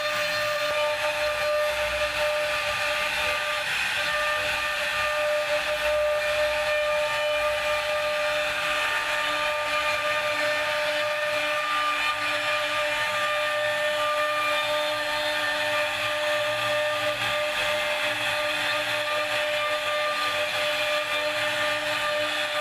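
CNC wood router running, a steady whine from the spindle over a constant hiss of the bit cutting wood.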